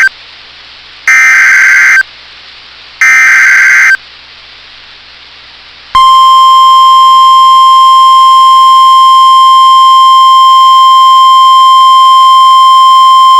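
NOAA Weather Radio Emergency Alert System signal. The last of one SAME header data burst is followed by two more one-second warbling data bursts about a second apart. About six seconds in, the steady 1050 Hz warning alarm tone starts, announcing a flash flood warning.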